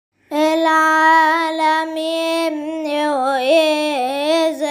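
A solo voice singing the opening of an Arabic hymn: long held notes with vibrato and ornamental turns, with no clear words. The voice comes in just after the start.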